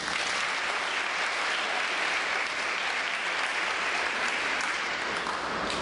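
Audience applauding steadily at the close of a speech.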